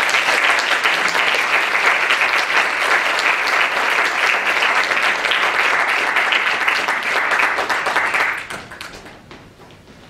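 Audience applauding, a dense steady clapping that fades out about eight and a half seconds in.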